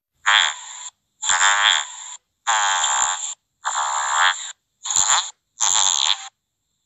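A person's voice recorded through an iPhone Animoji, making six short, buzzy croaking noises with clean silences between them.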